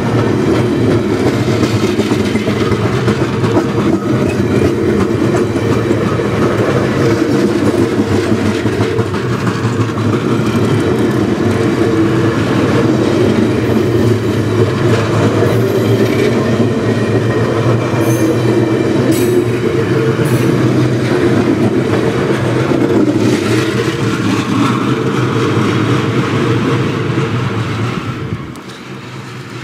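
Stainless-steel passenger cars of VIA Rail's 'The Canadian' rolling past on the track: a steady, loud rumble of wheels on rail. It drops off sharply near the end.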